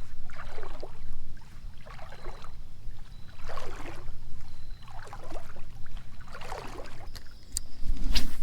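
Legs wading through shallow river water, a swishing splash with each stride about every one and a half seconds, over a steady low rumble. Near the end comes a sharper, louder splash or knock.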